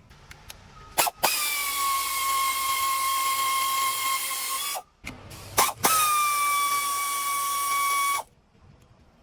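A power tool runs in two bursts, one of about three and a half seconds and one of about two, each a steady whine over a hiss that drops a little in pitch as it starts. This is typical of fasteners being run off during an engine teardown. Sharp clicks come just before each burst.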